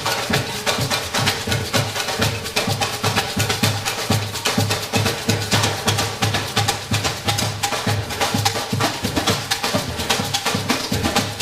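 Upbeat instrumental music with a steady, busy percussion beat of drums and wood-block-like knocks.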